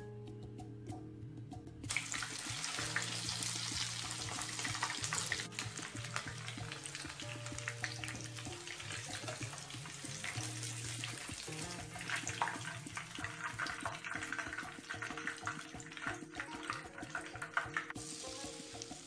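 Chicken lollipops deep-frying in hot oil in a wok: a dense, crackling sizzle that grows much louder about two seconds in and eases near the end. Soft background music with low held notes plays under it.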